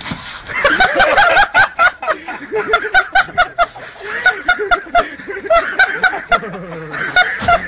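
People laughing hard, in quick repeated bursts of snickering and chuckling.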